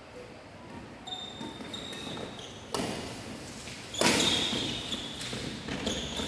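Badminton rally: racket strokes on the shuttlecock, a sharp hit a little under three seconds in and a louder one about four seconds in, each echoing in a large hall. Shoes squeak briefly on the court between the hits.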